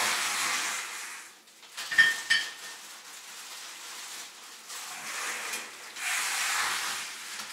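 Plastic grocery bags and packaging rustling and crinkling as food is taken out, with a sharp knock and a couple of short clinks about two seconds in as an item is set down.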